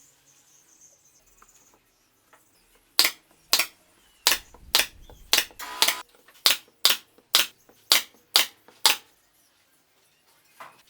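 A run of about a dozen sharp knocks, roughly two a second, starting about three seconds in and stopping a little before nine seconds.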